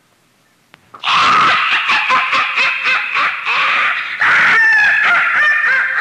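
Loud laughter sound effect from a 1986 horror sound-effects cassette, starting abruptly about a second in after near silence and a faint click, in rapid repeated peals with high shrieking tones later on.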